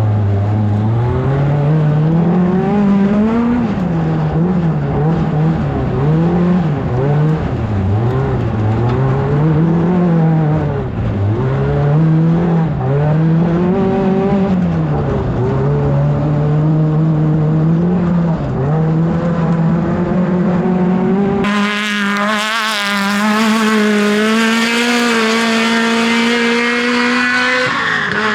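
Off-road race car's engine under hard driving, its revs climbing and dropping again and again. About three-quarters of the way through, the sound cuts to another recording with the engine held high and slowly rising.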